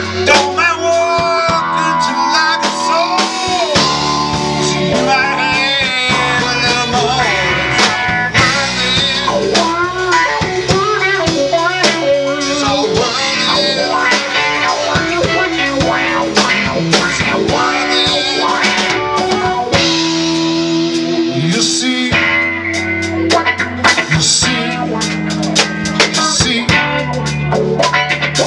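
Live blues-rock band playing an instrumental passage: electric guitar, electric bass and drum kit, with a harmonica played through a vocal microphone, its notes bending and wavering.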